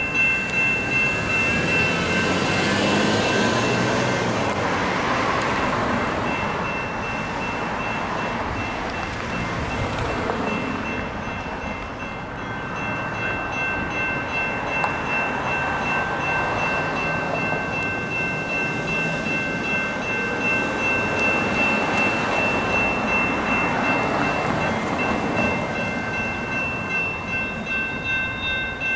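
Railroad crossing bell ringing steadily while a light-rail train rolls past with a broad rumble. The bell is loud at first, sinks under the train's rumble in the middle, and rings out plainly again near the end.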